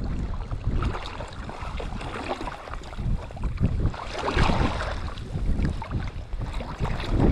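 Wind buffeting the microphone in uneven gusts, a rough low rumble that swells and fades.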